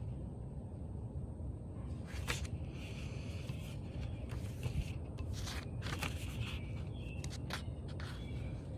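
Pages of a paperback book being leafed through by hand: papery rustles and several short flicks as pages turn, over a steady low rumble.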